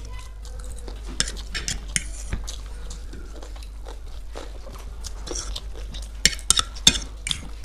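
Metal forks clicking and scraping on plates while two people slurp and chew vegetable chowmein noodles, picked up close by a microphone lying on the table. A quick run of sharp clicks comes near the end.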